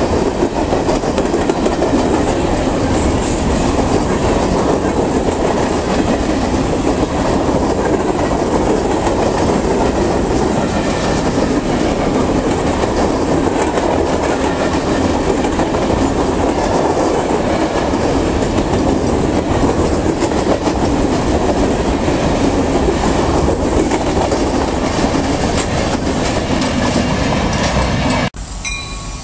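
CSX freight train of covered hopper cars rolling past close by: a steady, loud rumble and clatter of steel wheels on the rails. It cuts off abruptly about a second before the end.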